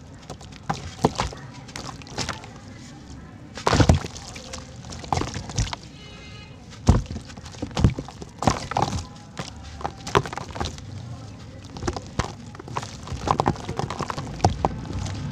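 Cylinders of red dirt (sand-cement) crumbling and breaking apart in water: irregular sharp cracks and thuds, a few louder than the rest, with softer crumbling between them.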